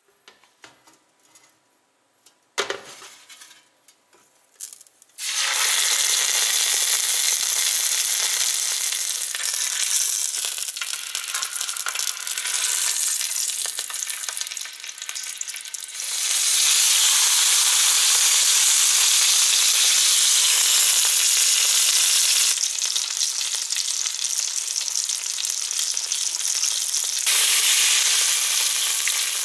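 Turkey roll roast searing in hot clarified butter in a roasting pan: after a few light clicks and a knock, a loud steady sizzle starts suddenly about five seconds in. It swells louder near the end as poultry stock is poured into the hot pan to deglaze it, hissing and steaming.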